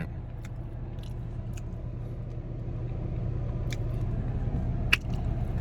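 Car engine idling: a steady low hum, with a few faint ticks and one sharp click near the end.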